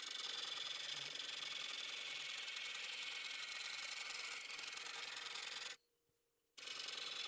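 Wood lathe spinning a red oak bowl with a turning tool cutting the wood, a steady hissing scrape. Near the end the sound cuts out abruptly for under a second, then resumes.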